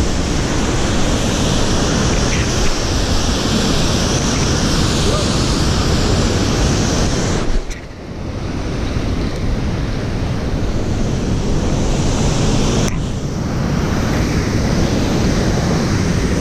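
Steady rushing of creek water over rapids, mixed with wind buffeting the microphone. The sound breaks off and changes abruptly twice, about 8 and 13 seconds in.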